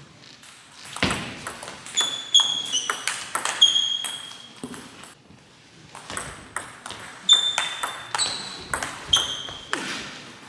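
Table tennis rallies: the ball clicks off the bats and bounces on the table with short, bright pings, at a quick back-and-forth pace. The hits stop for a moment about four seconds in, then a second exchange starts.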